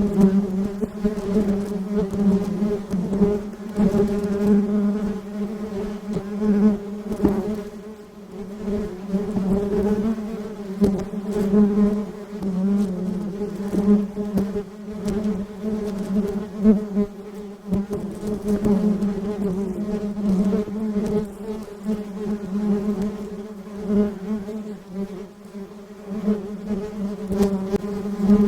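Honeybees buzzing: a steady, low drone of wings that keeps swelling and dipping in loudness.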